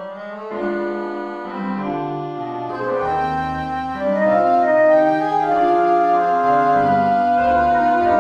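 Slow instrumental music of sustained organ-like keyboard chords, growing louder about four seconds in.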